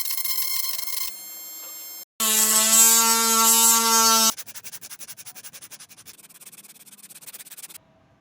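A small electric power tool's motor buzzing at a steady pitch in two short cut-together stretches, the second louder, followed by a fast, even rasping of about ten strokes a second as wood is worked.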